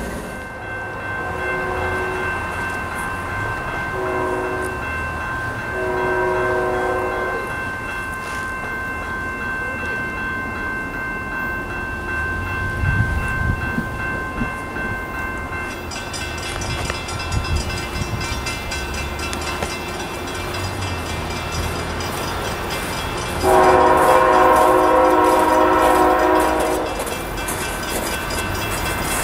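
Air horn of an approaching CSX freight locomotive, a GE ET44AH: three short, distant blasts in the first eight seconds, then a much louder long blast about 24 seconds in, with another beginning near the end.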